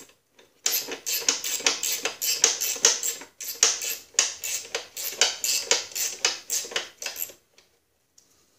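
Socket ratchet clicking in quick, regular strokes, about four a second, as a tie rod nut is tightened. The clicking stops about a second before the end.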